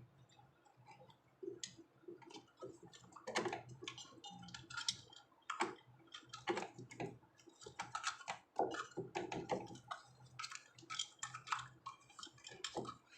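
Irregular light clicks and taps, uneven in spacing and strength, over a faint steady low hum.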